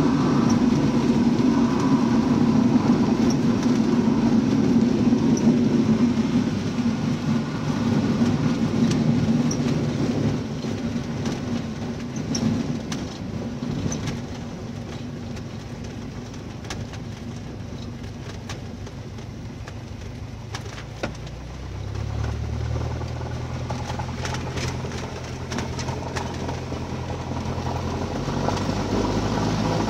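Cessna 172M's four-cylinder Lycoming engine and its wheels on a grass runway, heard from inside the cabin as the plane rolls out on the ground. The sound is loud at first, falls away over the first dozen seconds as the plane slows, with a few short knocks and rattles, and the engine's low drone rises a little about two-thirds of the way through.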